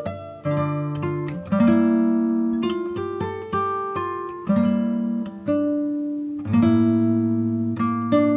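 Acoustic guitar playing: plucked notes and strummed chords, each ringing out and fading before the next.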